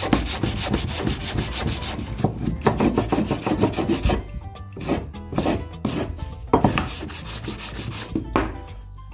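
Hand sanding along the edge of a wooden frame with sandpaper on a block: quick back-and-forth strokes, slowing to separate strokes after about four seconds. The sanding is softening the small detail on the frame's edge.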